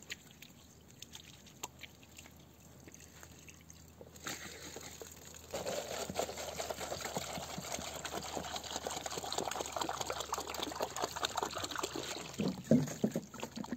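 Water poured from a large plastic jug into a small plastic container: a steady splashing stream that starts about four seconds in and grows louder about a second later.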